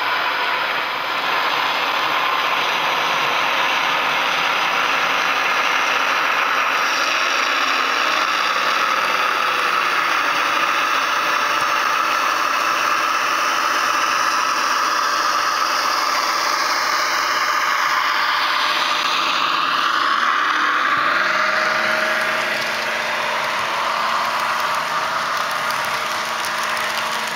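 Bachmann sound decoder's recorded Class 55 Deltic diesel engine sound, played through a bass reflex speaker in an OO gauge model locomotive's fuel tank as the model pulls its train away, together with the rattle of the model train running on the track. The engine note changes about three-quarters of the way through and settles into a steadier hum near the end.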